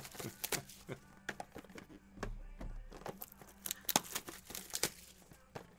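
Plastic shrink-wrap being torn and crinkled off sealed boxes of baseball cards, with irregular sharp crackles and taps of cardboard being handled.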